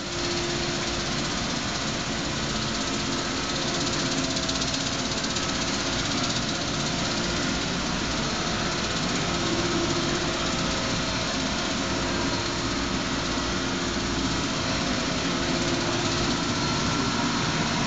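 ERSA Versaflow 40/50 dual-pot selective soldering machine running under full power: a steady mechanical hum and whir with a few faint steady tones through it.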